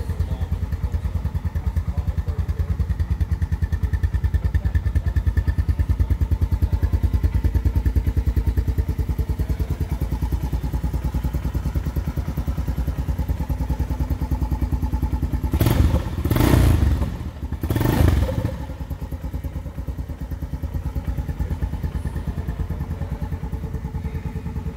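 Honda Recon 250 ATV's small air-cooled single-cylinder four-stroke engine idling steadily through its stock exhaust, with two short, louder bursts about two-thirds of the way in.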